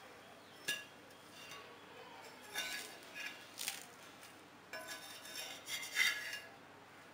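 Steel spatula scraping and clicking against a black iron dosa tawa as a crisp roast dosa is lifted and folded. There is a sharp tap about half a second in, then two stretches of scraping and clinking, the second the loudest.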